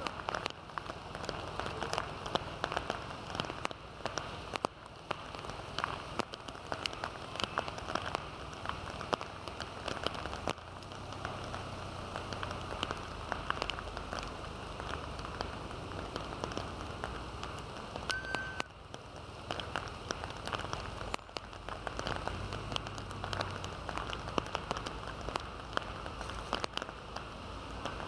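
Heavy rain pouring down, with many sharp taps of drops striking hard surfaces.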